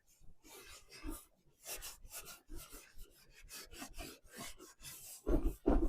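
Black wax being rubbed onto a milk-painted wooden surface in quick, irregular scrubbing strokes, with a couple of soft knocks near the end.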